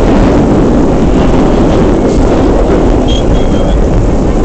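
Vintage IND R1/9 subway car running at speed, heard from inside the car: a loud, steady rumble of the train on the rails. A few brief, thin, high squeals come in about three seconds in.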